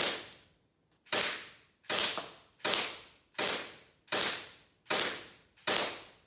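CO2-powered airsoft Glock pistol fired eight times in a steady rhythm, about one shot every three quarters of a second, each a sharp crack that trails off.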